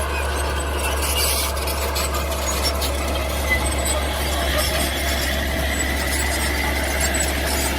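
Mini bulldozer running and working, a steady machine noise with a faint thin high whine over it in the second half.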